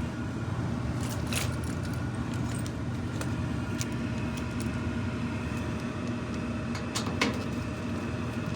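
Furnace running hard with a steady mechanical hum made of several held tones. A few light metallic clicks and jingles sound over it, the loudest about a second in and again about seven seconds in.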